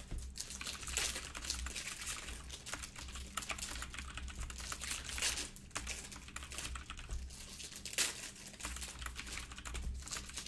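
Computer keyboard typing: a fast run of light key clicks. At times it is mixed with the crinkle of foil card-pack wrappers being handled and torn open.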